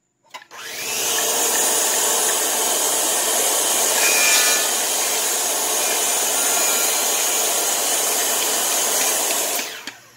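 Corded circular saw spinning up and cutting through a century-old dried wooden brace, running steadily under load for about nine seconds before winding down near the end.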